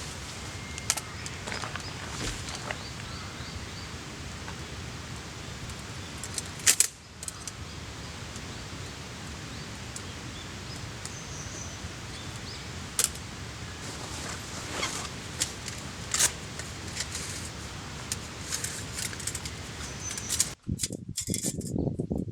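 Campfire cooking sounds: a steady hiss with scattered crackles and sharp clicks, and a loud clink about seven seconds in. The sound changes abruptly near the end.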